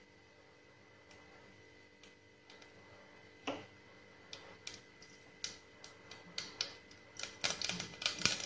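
Hot cooking oil crackling and spitting in a pot as it heats. Single faint pops come at first, then quicken into a steady crackle in the last second or so.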